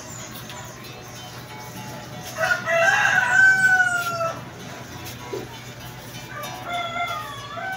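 A rooster crowing: one loud crow about two and a half seconds in, lasting about two seconds and falling in pitch at the end, then a fainter, shorter call near the end.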